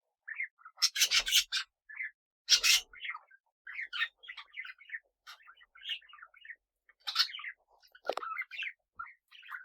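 Pet parrots chattering in many short chirps and warbles, with two brief loud scratchy rustles about one and two and a half seconds in.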